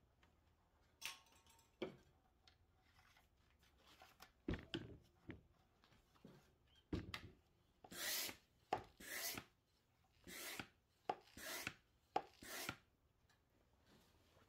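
Hand oil-extractor pump drawing old engine oil out through a tube in the dipstick tube: faint handling clicks and rubs, then about five short rasping strokes roughly a second apart.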